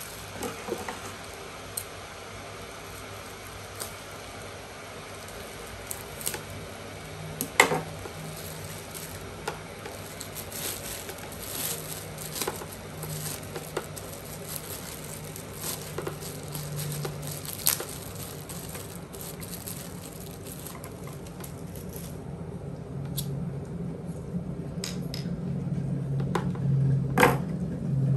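Scattered clicks and light knocks of objects being handled, with a low hum underneath that grows louder over the last few seconds.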